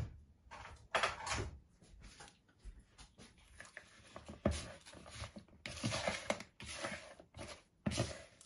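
A spoon stirring raw chicken pieces and spices in a plastic mixing bowl: irregular scrapes, knocks and wet squelches as the meat is mixed for its marinade.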